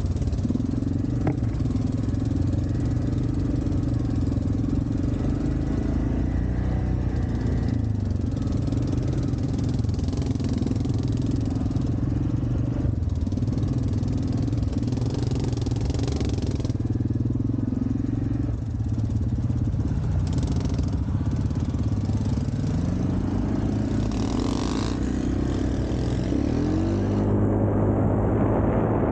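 ATV engine running on the trail, its pitch shifting with the throttle and rising near the end as it speeds up.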